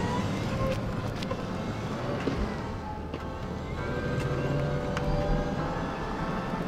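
Electric mobility scooter pulling away, its motor whine rising as it gets going. Soft piano music comes in about halfway through.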